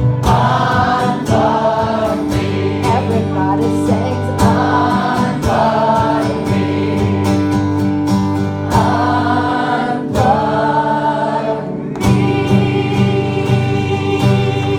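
Group sing-along: many voices singing together in phrases over a strummed guitar.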